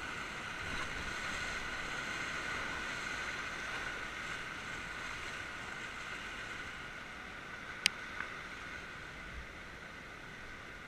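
Whitewater river rapids rushing around an inflatable raft, a steady rush that slowly eases as the raft comes out into calmer water. A single sharp click sounds just under eight seconds in, with a fainter one right after.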